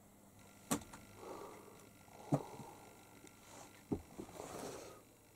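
A kitten moving about on cardboard boxes and papers: three short knocks about a second and a half apart, each followed by a little rustling.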